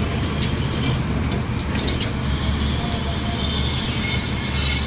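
Doosan 490 excavator's diesel engine running steadily with a low, even rumble, with a few light clicks about a second in.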